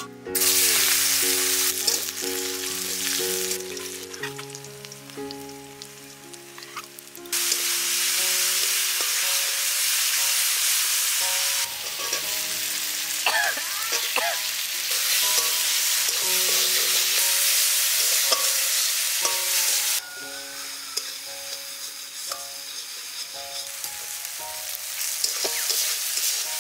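Sliced onion and spice paste sizzling in hot oil in a steel wok, stirred with a metal spatula. The sizzle grows louder about seven seconds in and eases off again near twenty seconds.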